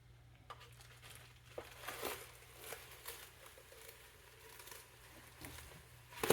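Hands handling computer parts at close range: scattered light clicks and crinkling rustles, with a sharper knock near the end.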